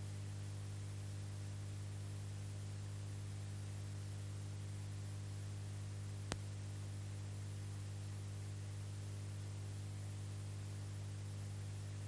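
Steady electrical hum with even hiss and no other sound: the noise floor of a transfer of silent 8mm film, which has no soundtrack. A single sharp click about six seconds in.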